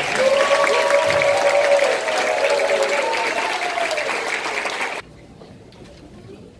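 Audience in a school hall applauding, with cheering voices mixed in. The applause stops abruptly about five seconds in.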